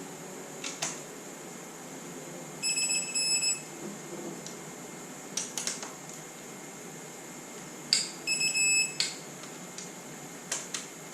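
Digital torque wrench beeping twice, each time a burst of rapid high beeps lasting under a second, as a cylinder-head bolt being rechecked reaches its set torque. A few sharp metal clicks come before and between the beeps.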